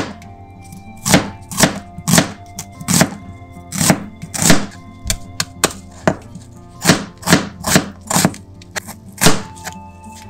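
Chef's knife slicing an onion on a plastic cutting board: a series of sharp knocks as the blade cuts through and strikes the board, about two a second, with a short pause about six seconds in.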